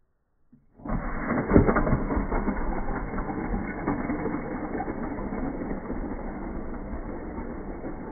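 Slowed-down sound of die-cast toy cars released from their launchers and rolling across a wooden floor: it starts suddenly about a second in, with a knock soon after, then a low rolling rumble that slowly fades.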